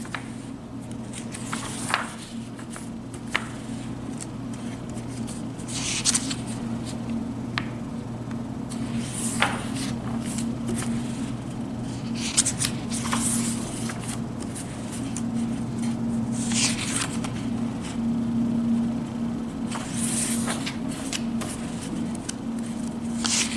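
Pages of a paperback coloring book being turned one after another, each turn a short papery swish and rustle, about every three to four seconds. A steady low hum runs underneath.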